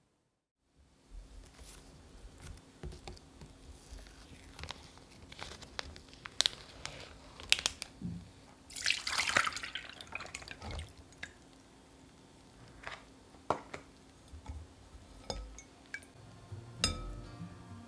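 Tofu noodles being unpacked and drained: light clicks and rustles of the plastic tray being handled, a short rush of pouring liquid about nine seconds in, and water dripping through a metal sieve into a glass bowl.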